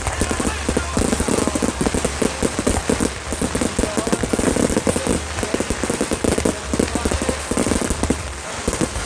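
Aerial fireworks firing in a dense, rapid run of sharp reports and crackling, many pops a second without a break.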